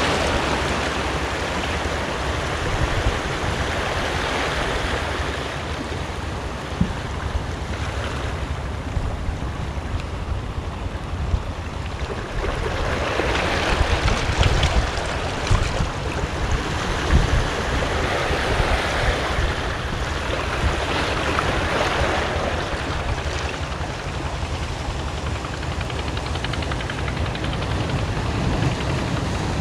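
Sea waves washing against the rocks of a breakwater, the wash swelling and fading several times, with wind buffeting the microphone.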